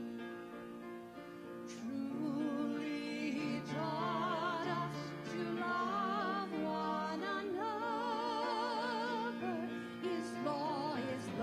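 Instrumental accompaniment with steady held chords, then from about two seconds in a woman and a man singing together over it with wide vibrato.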